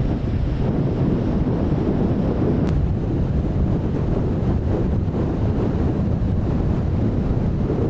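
Strong wind buffeting the microphone in a steady low rumble, over the wash of rough sea.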